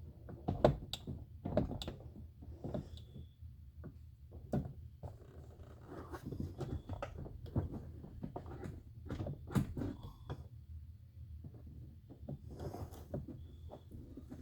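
Irregular knocks, taps and clicks of a car's interior door panel being handled and pushed back onto the door, with a steady low hum underneath.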